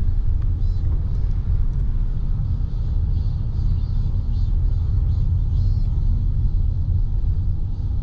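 Steady low road rumble of a car driving, heard from inside the car, with cicadas singing in repeated pulses from the roadside trees. The cicadas come through more clearly in the second half.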